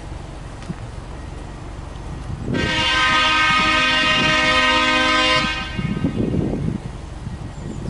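Subaru Impreza WRX STI's turbocharged flat-four engine idling at the exhaust, with a loud, steady horn blast of about three seconds over it from about two and a half seconds in. The engine is then revved in short blips near the end.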